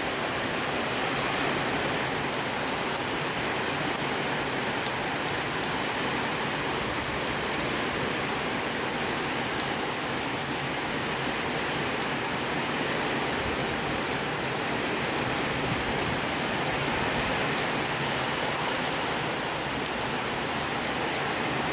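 Heavy rain pouring down steadily, a dense even hiss of falling water that stays at the same strength throughout.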